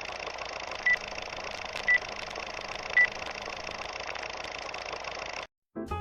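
Honda EM400 portable generator's engine running steadily, with three short high beeps about a second apart. The running sound cuts off abruptly near the end, and music begins.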